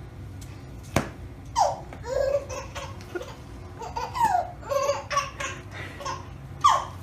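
A baby laughing and squealing in short bursts, several of them falling in pitch. There is a single sharp knock about a second in.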